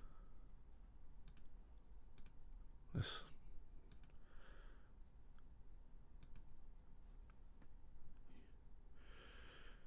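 Faint computer mouse clicks, several in quick pairs, with a few soft breaths in between.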